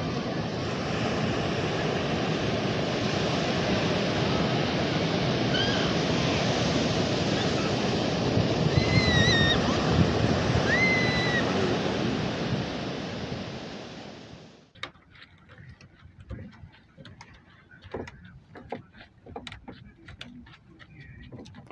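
Ocean surf breaking on a sandy beach, a steady loud rush, with a few short high calls over it near the middle. It cuts off abruptly about fifteen seconds in, leaving a quiet stretch of scattered clicks and knocks.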